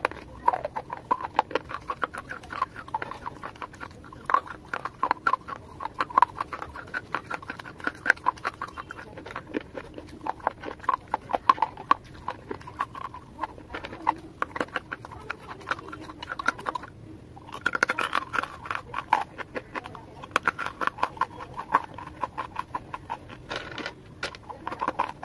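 Close-up crunching and chewing of dry, hard clay pieces in the mouth, a dense run of sharp crackling bites with a brief pause a little past halfway.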